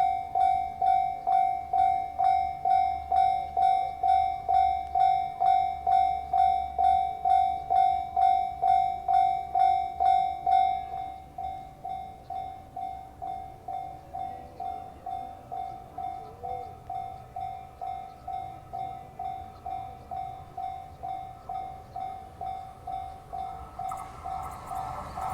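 Japanese railway level crossing alarm ringing a steady electronic ding about twice a second. It drops to a lower volume about eleven seconds in, and the rumble of an approaching train begins to rise near the end.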